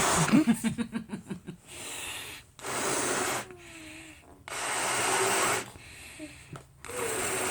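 Someone blowing up a balloon by mouth: a fluttering blow at first, then four long puffs of breath, each about a second long, with short pauses between them.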